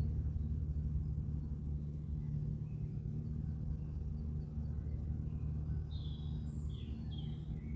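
Outdoor ambience: a steady low rumble, with small birds chirping in a cluster of calls near the end.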